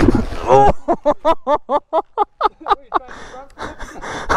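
Dirt bike engine running, then cutting out abruptly under a second in as the bike stalls, followed by a person laughing in quick, rhythmic bursts and breathing hard.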